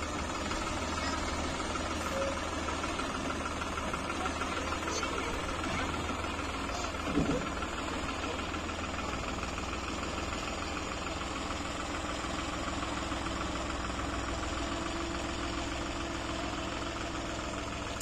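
Tractor-mounted combine harvester, its New Holland tractor's diesel engine running steadily as the machine moves slowly, with a brief louder sound about seven seconds in.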